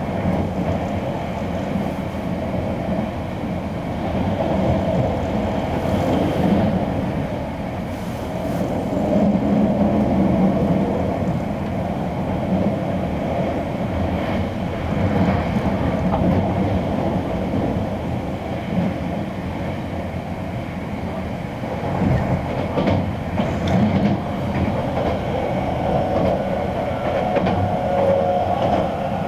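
Keisei AE-series limited express train running at speed, heard from inside the passenger car: a steady rumble of wheels on the track.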